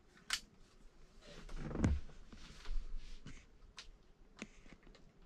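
Handling noises as a hunting rifle is picked up and shouldered in a small wooden deer blind: a sharp click just after the start, a low thump about two seconds in, then a few light knocks.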